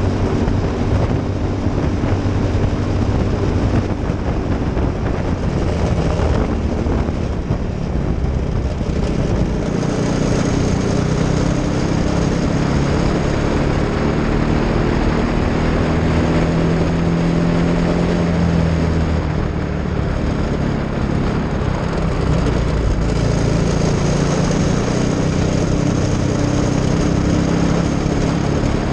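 Briggs & Stratton LO206 single-cylinder four-stroke kart engine at racing speed, its pitch slowly climbing and falling away as the kart accelerates and backs off, with a clear drop about twenty seconds in before it climbs again. Wind rush on the microphone runs under it.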